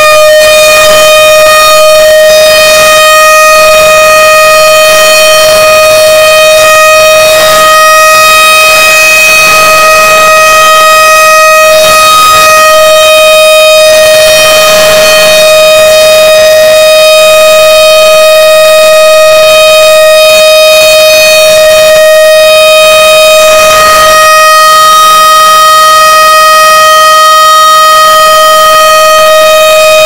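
Tornado warning siren holding one steady wailing tone, boosted to the point of harsh clipping distortion and extremely loud.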